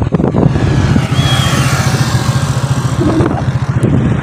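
A motorcycle engine running steadily, with a rushing road noise that swells midway.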